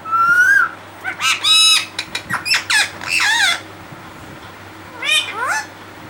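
Rose-ringed parakeet squawking and calling close by: one rising call, then a quick run of several bending calls, then a short pair of calls about five seconds in.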